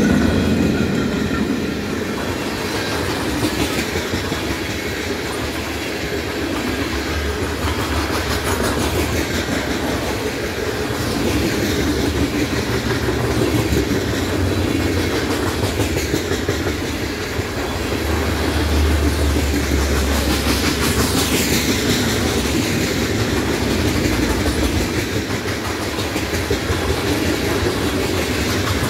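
Freight cars of a BNSF manifest train, covered hoppers and tank cars, rolling past at track speed: a steady rumble of steel wheels on rail, with rapid clickety-clack as the trucks cross rail joints.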